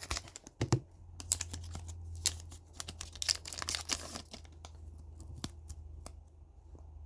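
Hockey trading cards being handled: cards sliding and clicking against each other as they are flipped through, with some crinkling, over a low steady hum.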